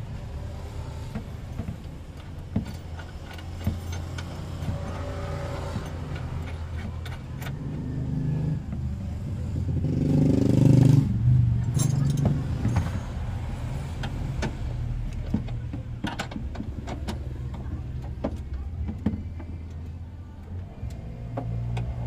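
Metal seatbelt hardware clicking and clinking as a seatbelt's anchor plate and webbing are handled against a van's pillar, over a steady low rumble. A passing vehicle's rumble swells and fades around ten to eleven seconds in.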